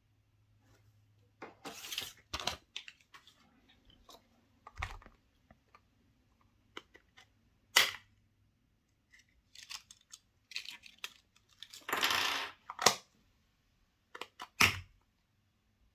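Chocolate surprise eggs and their plastic toy capsules being handled: irregular crinkles of foil and sharp plastic clicks, with a longer rustle about twelve seconds in.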